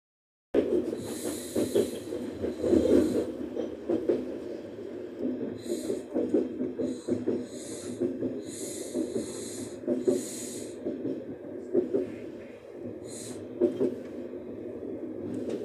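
Running noise inside a moving electric commuter train carriage: a steady rumble of wheels on the track with small clicks, and repeated bursts of hiss. The sound drops out for about half a second at the start.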